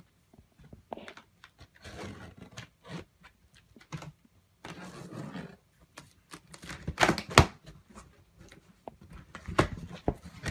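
A large cardboard shipping box being opened: the tape along its seams is worked at and torn, with cardboard scraping and rustling and several sharp knocks, the loudest about seven seconds in. The top flaps are pulled open near the end.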